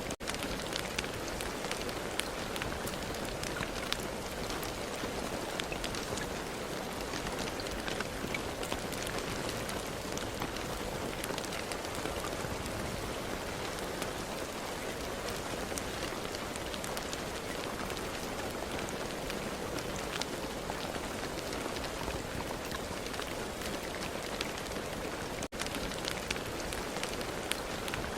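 Steady rain, with many distinct drops landing over an even hiss. The sound drops out for a split second near the end.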